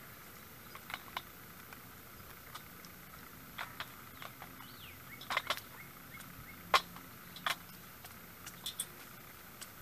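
Crows' beaks pecking at peanuts and dry cat food in a shallow feeding dish: sharp, irregular taps and clicks, some in quick pairs, the loudest a little before seven seconds in, over a faint steady hiss.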